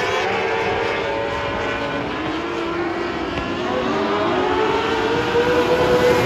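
Several wingless 600 micro sprint cars racing, their 600cc motorcycle engines revving up and down as they go through the turns. Near the end one engine note rises and grows louder as a car comes close.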